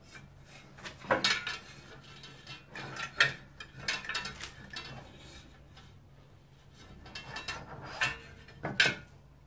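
Scattered metallic clicks and clinks as a classic Mini's front hub and brake disc are handled and worked onto the driveshaft splines, over a low steady hum. The clicks come in small clusters about a second in, around three to four seconds in, and near the end.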